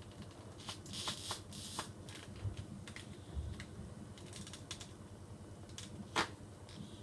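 Scattered light clicks and brief rustling of small objects being handled, with one sharper click about six seconds in.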